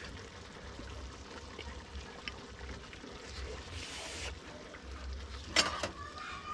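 Cooking at a pot over an outdoor wood fire: a low steady rumble, a short hiss about four seconds in, then two sharp knocks near the end.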